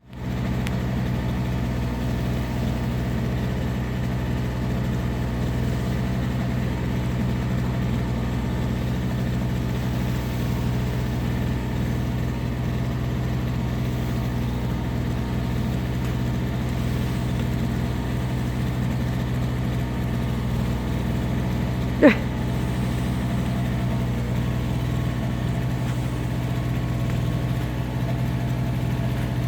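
A car engine idling with a steady low hum. About three quarters of the way through there is one short, sharp squeak that rises in pitch.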